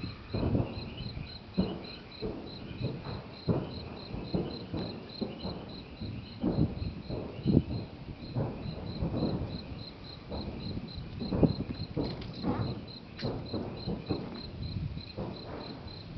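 Crickets chirping steadily, about four chirps a second, over irregular low, dull thumps about once a second.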